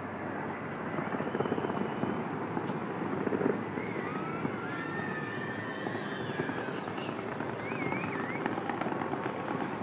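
Fireworks display: a steady dense crackle, with a few sharp pops and, over the second half, whistles gliding up and down.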